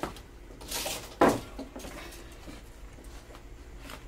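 Wooden kitchenware being handled around a tub of cooked rice and a lidded pot: a short hissing scrape, then a sharp wooden knock a little over a second in, followed by a few lighter knocks.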